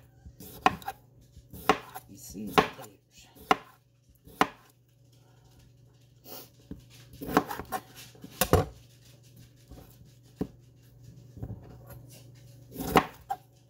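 Kitchen knife slicing raw potatoes, each cut ending in a sharp knock of the blade on the hard work surface. The strokes come about once a second at first, pause in the middle, then resume more unevenly.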